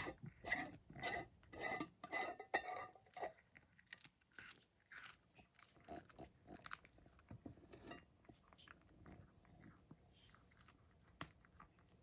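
A cat chewing and crunching dried sardines (niboshi): quick, regular crunches about two a second for the first three seconds, then slower, fainter chews that thin out toward the end.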